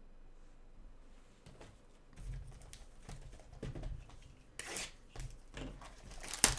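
Trading cards and their packaging being handled: scattered soft rustles and clicks, a brief hissing rustle about four and a half seconds in, and a sharp click near the end.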